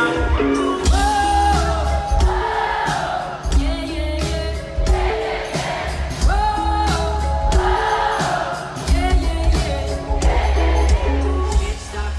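Pop-rock song with a sung melody over heavy bass and steady drum hits, the bass dropping out briefly a few times.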